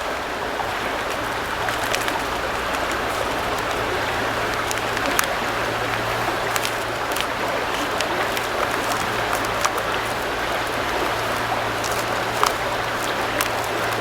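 Campfire crackling, with scattered sharp pops, over the steady rush of flowing river water.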